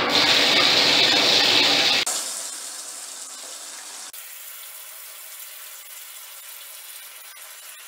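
Water running from a bathtub spout into the tub, pouring onto the closed push-button drain stopper as the tub starts to fill. Loud for the first two seconds, then abruptly quieter at about two seconds and again at about four seconds.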